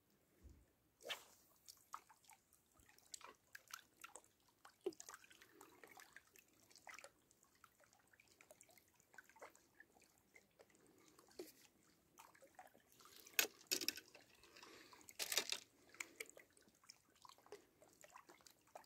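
Near silence broken by faint, scattered clicks and drips of small lake waves lapping against the stones of the shore, with a louder cluster of clicks about two-thirds of the way through.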